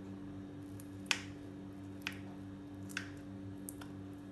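Kitchen knife cutting through a soft semolina dhokla, the blade clicking sharply against the plate beneath about once a second, over a steady low hum.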